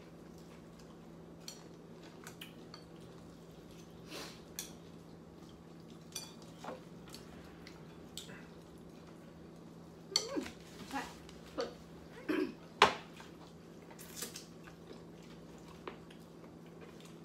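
Chopsticks and soup spoons clinking and scraping against ceramic noodle bowls during a meal, with scattered short eating noises. The clicks come sparsely at first and bunch up in the second half, the loudest a sharp clink about thirteen seconds in.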